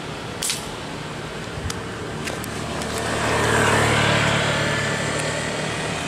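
A motor vehicle passing on the road: its noise swells from about halfway through, peaks and then fades, over a steady traffic background. A single sharp click comes about half a second in, with a couple of fainter ticks after it.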